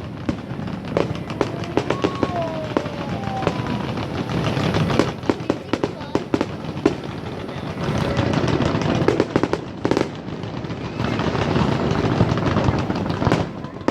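Aerial fireworks bursting in quick succession: many sharp cracks and pops over a continuous crackling din, with crowd voices underneath.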